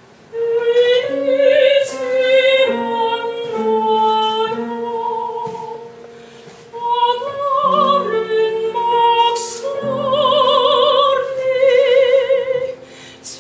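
A woman singing an operatic line in two long phrases over a low, sparse accompaniment, with a brief pause between them; the held high notes of the second phrase carry a wide vibrato.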